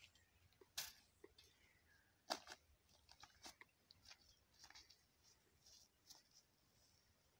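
Faint crunching, rustling and scattered clicks as a rope is handled and laid out over dry grass and soil, with two sharper clicks in the first few seconds.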